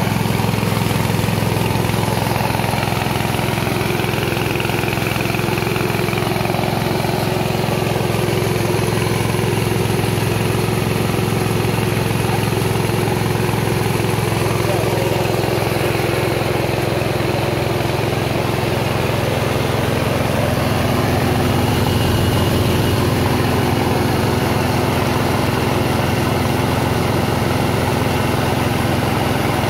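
Small 6.5 hp engine running steadily at an even speed, driving a rice milling machine as it hulls paddy into rice and bran.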